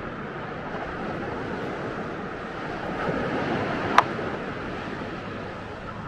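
Ocean surf washing onto a beach: a steady rushing of breaking waves that swells a little about halfway through, with one sharp click about four seconds in.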